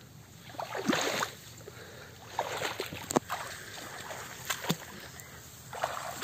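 Footsteps wading through shallow muddy water and brushing through tall grass, each step a splash or slosh, coming irregularly every second or so.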